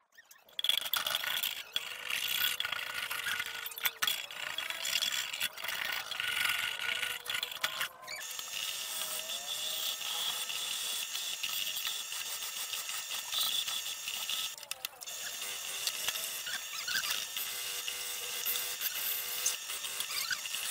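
Wire wheel brush spinning in a drill press, scouring old paint off a rice cooker's painted metal outer shell: a continuous harsh scraping that starts about half a second in, with a few brief dips as the shell is shifted against the wheel.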